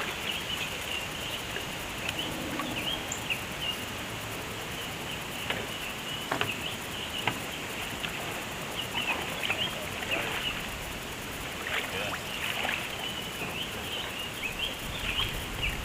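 Birds chirping in many short, quick calls over a steady hiss of flowing river water.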